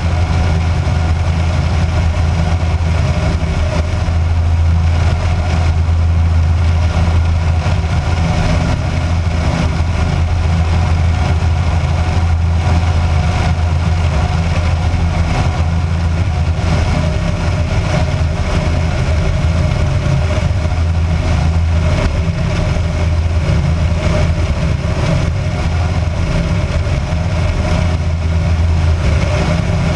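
Kitfox light aircraft's engine and propeller running steadily in flight, a constant drone with a strong low hum and no change in power.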